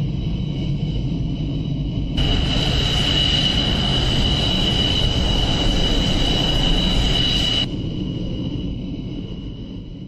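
Twin Klimov RD-33 turbofans of a two-seat MiG-29 running on the ground: a steady low rumble under a high turbine whine. It is louder for a few seconds in the middle, then fades away near the end.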